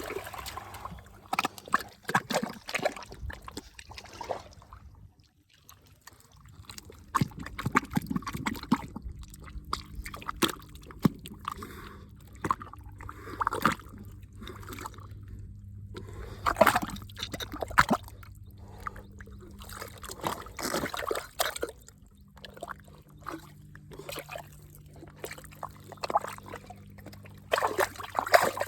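Water splashing, sloshing and trickling in irregular bursts, over a faint steady low hum.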